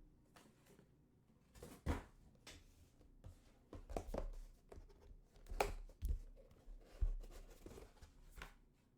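Card packaging being handled and opened by hand: scattered rustles, taps and light knocks, a second or so apart.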